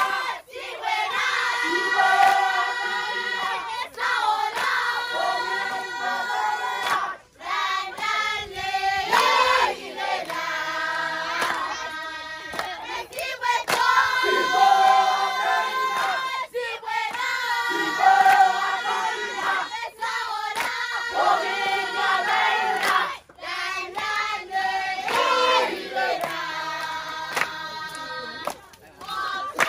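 A group of voices singing together in chorus, children among them, in sung phrases with short breaks between.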